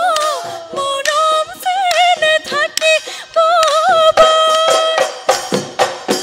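A woman singing a Bihu song with quick wavering ornaments and no clear words, then holding a long steady note from about four seconds in. Dhol drum strikes run underneath, growing busier toward the end.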